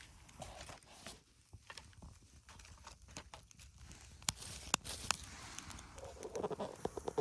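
Wood fire crackling, with scattered sharp pops; two loud pops come a few seconds in, and the crackling grows denser near the end.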